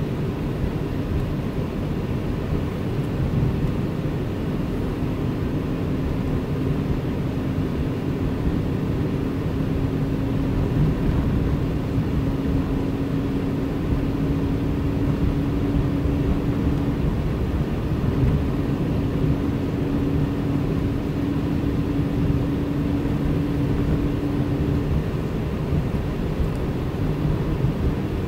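Steady low rumble of a car driving on a snow-covered road: engine and tyre noise. A faint steady hum runs through it, starting a few seconds in and dropping out briefly twice.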